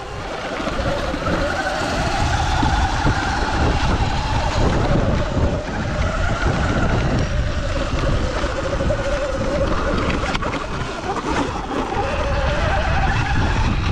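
Sur-Ron electric dirt bike riding uphill: the motor's whine rises and falls in pitch with throttle and speed, over heavy wind rumble on the microphone.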